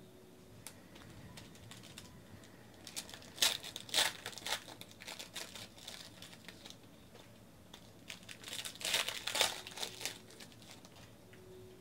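Foil wrapper of a Panini Contenders basketball card pack crinkling and being torn open by hand, in two bursts of crackling: one about three seconds in and one around nine seconds.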